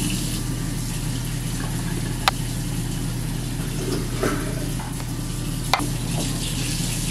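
A metal spoon scraping and tapping against a metal muffin tin as thick batter is spooned into the cups: a few sharp clicks over a steady background hiss.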